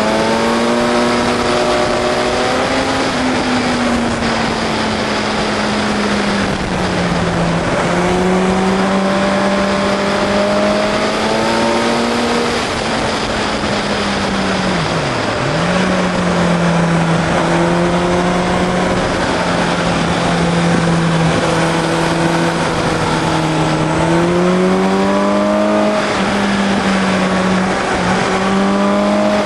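Motorcycle engine ridden hard through a run of bends, its pitch climbing and falling in sweeps as the throttle is opened out of corners and closed into them, with a sharp brief drop about halfway through. Steady wind rush over the microphone.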